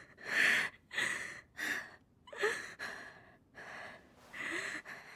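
Ragged, breathy gasps from an anime character, about eight short breaths in a row with small gaps between them, some carrying a faint whimper.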